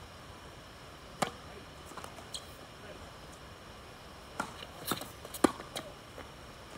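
Tennis ball struck by racket and bouncing on a hard court: one sharp hit about a second in, then a quick run of four or five hits and bounces from about four and a half seconds, the loudest near five and a half seconds.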